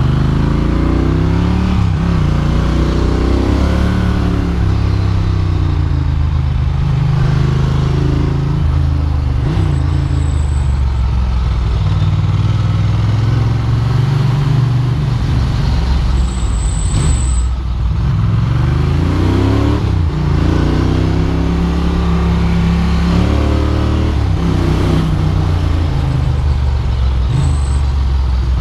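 Ducati Monster's V-twin engine under way, pulling up in revs and dropping back again and again as the rider accelerates and shifts through the gears, with wind noise on the microphone.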